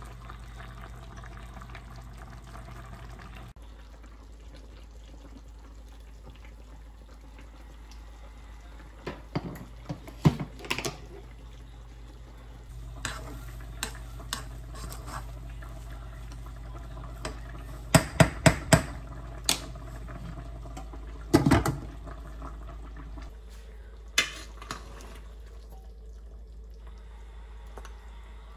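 Cooking utensils working in pots: a rice paddle scooping cooked rice from a metal pot and a ladle serving curry into a bowl. Scattered sharp knocks and clinks of the utensils against the pots come in small clusters over a steady low hum.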